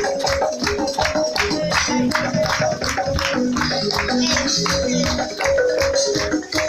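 Loud dance music with a quick, steady beat and a melody.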